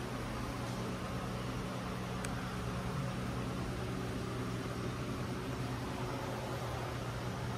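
Steady low mechanical hum with an even hiss, and a faint click about two seconds in.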